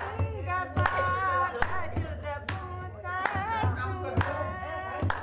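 A woman singing a folk song solo while playing a dholak, a hand-played two-headed barrel drum, with a deep drum stroke roughly every second.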